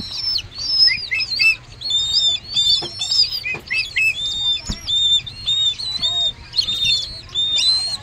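Downy bird chick giving a rapid run of high-pitched chirps, several a second, its begging calls while being hand-fed.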